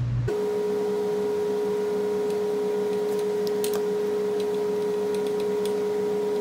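A steady mid-pitched humming tone with faint overtones and a few light clicks. It cuts in abruptly just after the start and cuts off abruptly near the end, replacing the garage's room sound.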